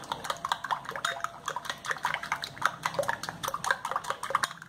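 Egg mixture being whisked with a plastic spoon in a glass bowl: quick, irregular clicking of the spoon against the glass, several strokes a second, with wet slapping of the beaten eggs.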